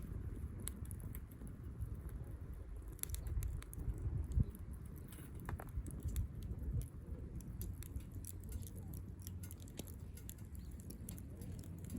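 Small wood fire crackling in a compact Firebox Stove, with scattered sharp pops and ticks.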